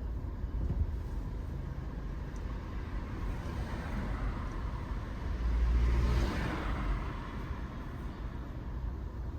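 City street traffic: a steady low rumble, with one vehicle passing close by around the middle, its noise swelling and then fading.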